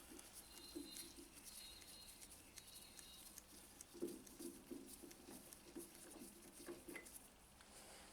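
Near silence, with a few faint, soft sounds.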